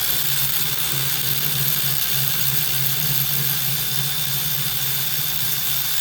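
A machine running steadily with a high whine over a low hum, starting and stopping abruptly.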